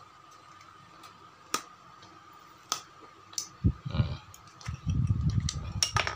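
Cutting pliers biting into and cracking the plastic housing of a hair clipper: scattered sharp snaps, a rough, low crunching and rubbing from about four seconds in, and a couple of loud snaps near the end.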